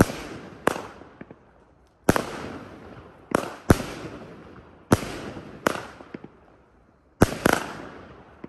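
Consumer firework cake (200-gram, 16-shot) firing: about nine sharp bangs at irregular gaps of under a second to about a second and a half, some in quick pairs, each trailing off in a fading rumble.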